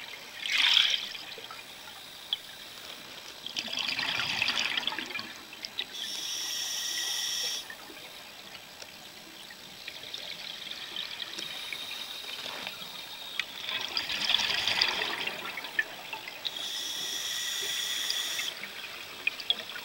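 Scuba diver breathing through a regulator underwater: surges of gurgling exhaled bubbles alternate with a steady, slightly whistling hiss from the regulator, two full breaths in all.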